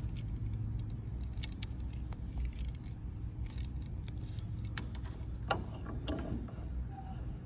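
AN hose-end fitting being threaded together by hand on -6AN hose: scattered light metallic clicks and ticks from the fitting parts, over a low steady hum.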